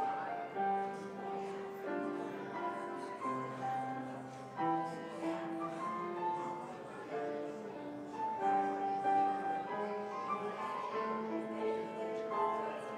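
Slow instrumental music played on a keyboard: held chords with a melody line moving above them.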